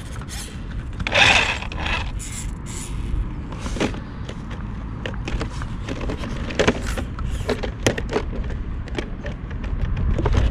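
HB Toys ZP1003/ZP1004 RC crawler driving over rough ground, its bouncy plastic body rattling with many short clicks and knocks and its tyres rubbing against the body, with a louder scrape about a second in. Heavy wind buffets the microphone throughout.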